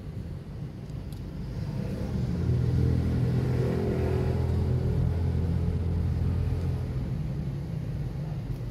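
A car driving past, its low engine rumble swelling about two seconds in, holding for a few seconds and fading away near the end.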